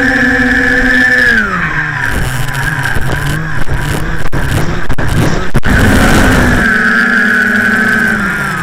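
Quadcopter's four Turnigy Aerodrive SK3 brushless outrunner motors and propellers whining, heard from a camera mounted on the craft. About a second and a half in the pitch falls sharply as the throttle is cut, leaving rushing air and a few sharp clicks. About six seconds in the whine comes back and wavers up and down.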